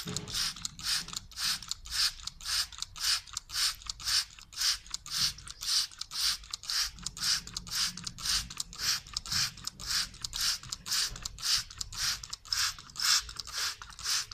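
Hand trigger spray bottle squirting water onto soil, pumped in quick, even strokes about three times a second, each squirt a short hiss.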